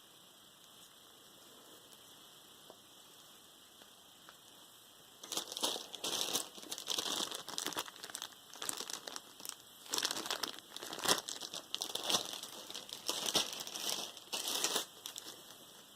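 Packaging crinkling and rustling in irregular bursts as it is handled and pulled apart. It starts about five seconds in after a stretch of faint hiss and hum, and stops shortly before the end.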